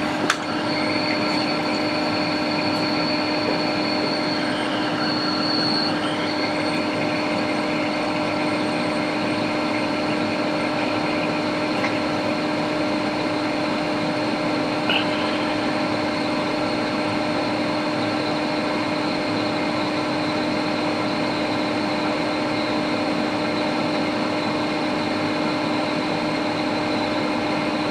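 Hot air rework station blowing steadily: an even rush of air with a constant hum from its blower.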